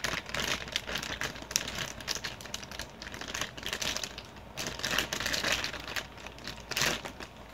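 Crinkling of a snack bag of popcorn being pulled at and worked open by hand: irregular crackles throughout, in louder bursts about halfway and near the end.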